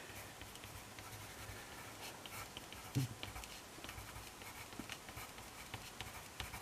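Pencil writing on paper: faint, irregular scratching and ticking of the lead as words are written by hand.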